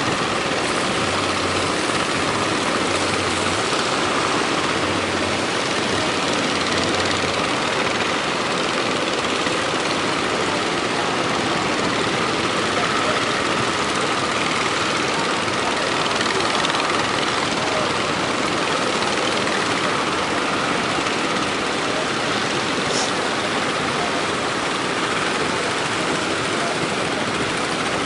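Fishing boat engine running steadily amid a continuous rush of surf and wind buffeting the microphone.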